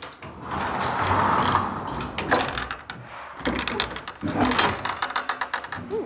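Horse stall's sliding door rumbling along its track, then two runs of quick metallic clanks and rattles as it is shut and latched.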